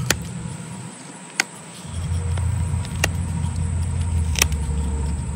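Pocket knife whittling ridges into a cedar bow-drill spindle: four sharp clicks, about one every second and a half, as the blade bites into the wood, over a steady low rumble that grows louder about two seconds in.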